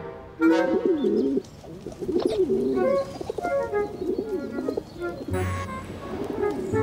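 Pigeons cooing: a run of low coos that waver up and down in pitch, over light background music.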